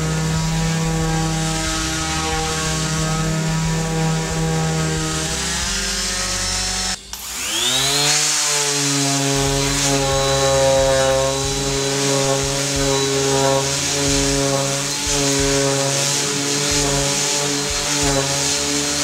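Bosch GSS 1400/A electric orbital sander running against wood with a steady motor whine. About seven seconds in it cuts out for an instant, then its pitch rises back up to speed and holds steady.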